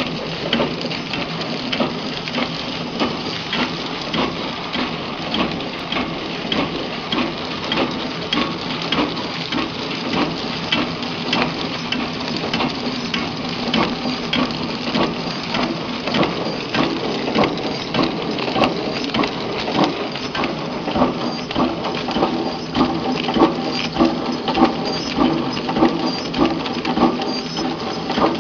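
Horizontal flow-wrap (pillow-pack) packaging machine running: a steady mechanical hum with rhythmic clacking from its wrapping and sealing cycle, louder in the second half.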